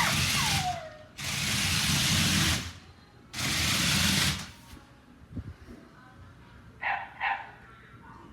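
WowWee CHiP robot dog moving through its yoga routine: its motors whir in three bursts of about a second each, with a short falling electronic tone about half a second in. Near the end come two short electronic chirps.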